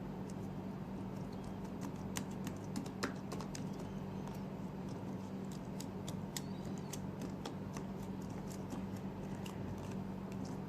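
Laptop keys clicking lightly and irregularly as a cleaning gel is pressed down over the keyboard, the clicks thickest in the first half. A steady low hum runs underneath.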